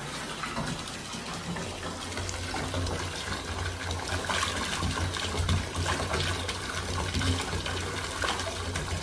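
Bath tap running, its stream of water pouring steadily into a partly filled bathtub.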